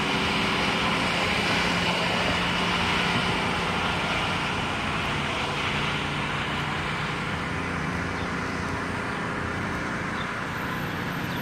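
Steady motor-vehicle drone with road traffic noise: an even low engine hum under a broad hiss that fades slightly near the end.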